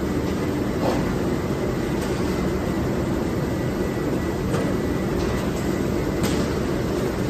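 Steady din of a rock wool slab conveyor and packing line running, with a thin steady whine and a few light knocks about a second in, mid-way and near the end.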